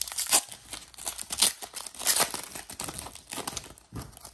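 Foil wrapper of a trading-card pack being torn open and crinkled by hand: a run of irregular sharp crackles that thin out near the end.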